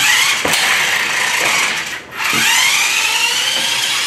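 Small electric motor of a remote-control toy motorcycle whining as it spins up. It cuts out about two seconds in, then spins up again with a rising whine.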